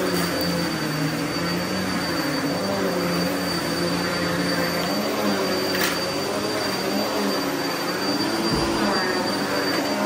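Upright vacuum cleaner running steadily while pushed over carpet. Its motor hum wavers slightly in pitch under a thin, steady high whine, and there is one sharp click about six seconds in.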